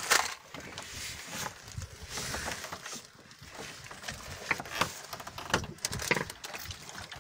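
Irregular clicks, knocks and rustling from gear being handled on a small wooden boat's deck.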